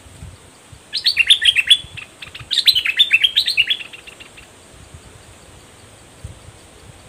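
Bulbul song: two bursts of rapid, clear notes stepping downward, the first about a second in and the second about a second and a half later.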